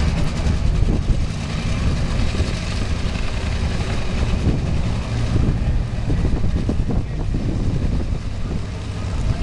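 Nitro Funny Car engines running near the starting line, a steady low rumble, with wind buffeting the microphone.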